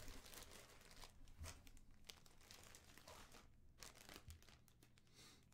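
Faint crinkling and rustling of packaging being handled, with small scattered crackles.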